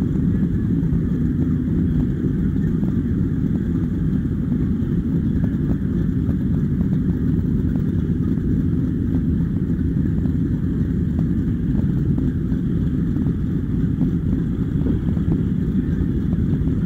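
Race powerboat engines running slowly at low revs: a steady, loud, low rumble with a faint rapid ticking over it.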